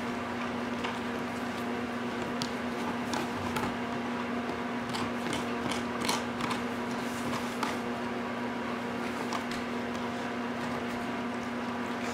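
Golden retriever puppy gnawing a knotted rawhide bone: scattered soft clicks and crunches of teeth on the chew, busiest in the middle. A steady low hum runs underneath throughout.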